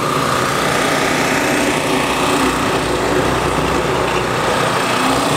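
Car engine running steadily as a car drives slowly out past, with a steady high tone over the engine note.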